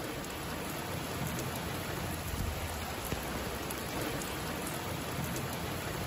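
Steady rain falling on trees and open ground, an even hiss of drops that doesn't let up.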